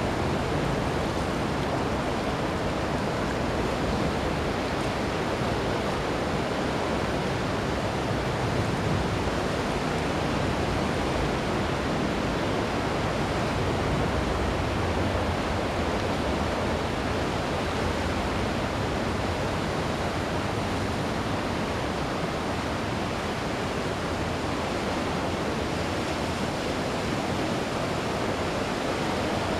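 Ocean waves breaking on a beach as a steady, even wash of surf with no distinct swells.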